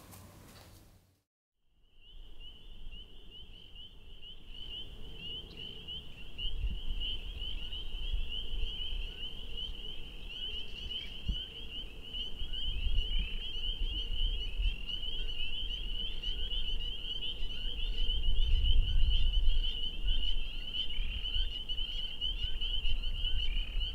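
Dense chorus of frogs calling, a steady high-pitched peeping that starts about two seconds in after a brief silence. Beneath it runs a low rumble that swells twice.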